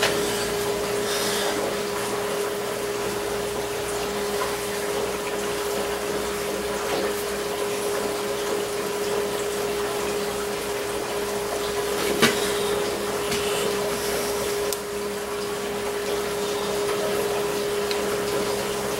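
A steady machine hum at one constant pitch, over a hiss. One sharp click about twelve seconds in.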